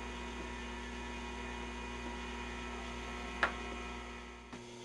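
Steady electrical mains hum with one short, light click about three and a half seconds in; the deepest part of the hum drops out near the end.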